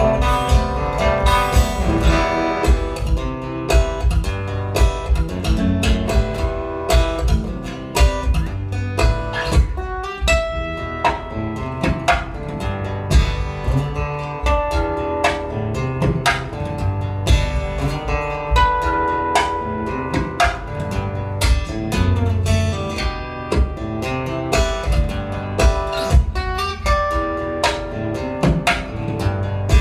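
Solo acoustic guitar played live in a fingerstyle instrumental, with sustained picked and tapped notes over many sharp percussive attacks and low thumps.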